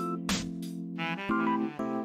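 Background instrumental music: held keyboard-like notes with drum hits.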